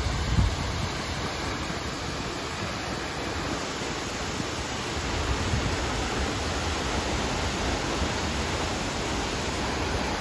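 Steady rushing roar of a large waterfall, Pulhapanzak falls, heard from a viewpoint, with a brief low thump on the microphone right at the start.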